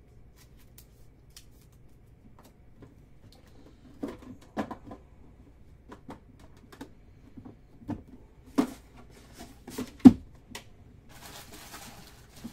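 Trading cards and a metal card tin being handled on a tabletop: a scatter of light clicks and taps, a few sharper knocks, the loudest about ten seconds in, then a brief rustling near the end.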